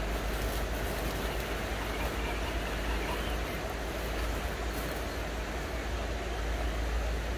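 Steady outdoor rushing noise with a deep low rumble underneath, level throughout, with no distinct motor whine or knocks standing out.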